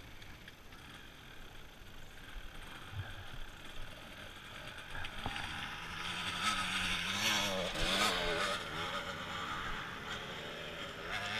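Trail-bike engine running close by, its pitch wavering up and down with the throttle and growing louder about halfway through, over wind noise.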